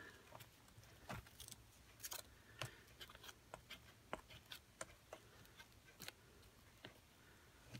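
Faint, irregular soft taps and clicks, about one or two a second, of a sponge dabbing texture paste through a plastic stencil onto a fabric-covered book page.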